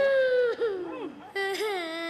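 A young boy crying in two long, wavering wails, with a short break a little after a second in.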